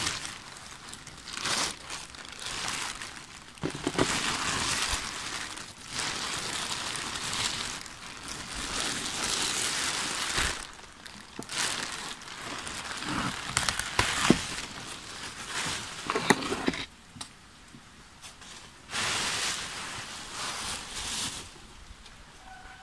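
Black plastic sheet crinkling and rustling as it is pulled off a tray of soil mix and bunched up, in irregular bursts with a few sharp crackles. It goes quiet for about two seconds, then one last burst of crinkling.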